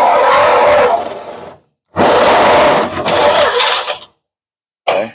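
Corded electric drill boring through the metal floor of a pickup truck bed. It runs in two bursts: it winds down about a second and a half in, starts again about two seconds in and stops about four seconds in, followed by a short blip near the end.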